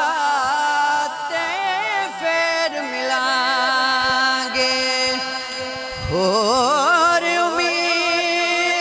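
A man singing a naat, an unaccompanied devotional poem, holding long, wavering notes; a new phrase begins about six seconds in with a rising glide in pitch.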